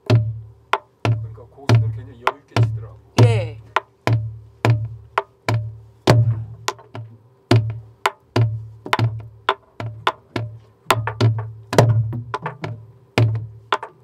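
Soribuk, the Korean pansori barrel drum, played by a group in a steady rhythm cycle: deep thumps on the drumhead about twice a second, each paired with sharp cracks of the stick on the wooden shell. A voice calls out briefly about three seconds in.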